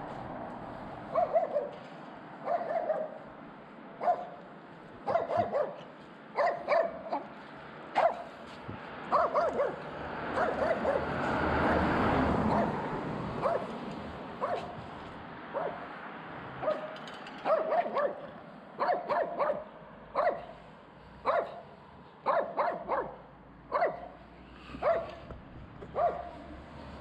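A dog barking repeatedly, short barks often in pairs, roughly one or two a second. A broad rushing noise swells and fades around the middle.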